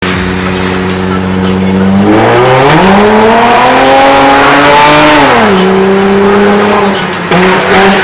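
Car engine holding steady, then revving up over a second, holding high and dropping back, with tyre squeal, as in drifting.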